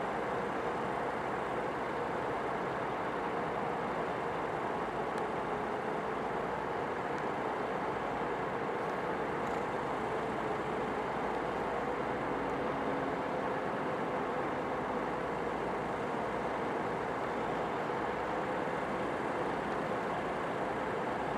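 Caterpillar bulldozer's diesel engine running steadily, with a held engine tone that drifts slightly in pitch.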